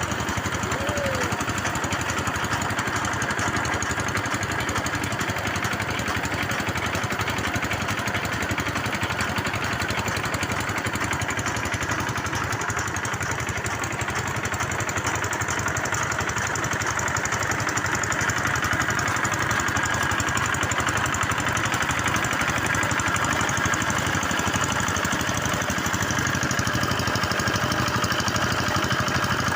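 Engine of a bore well drilling machine running steadily.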